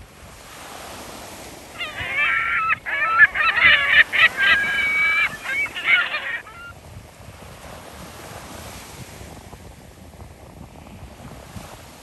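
Gulls calling: a loud flurry of overlapping calls for about four seconds, starting about two seconds in, over the steady wash of small waves and wind.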